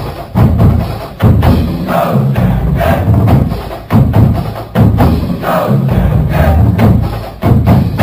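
A college fight song played by a marching band, driven by heavy drums with a strong beat about once a second.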